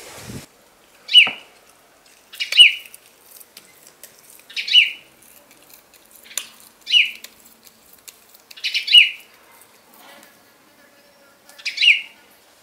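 Wet slaps of minced beef tossed between the palms to firm up meatballs, in six short, loud bursts about every two seconds.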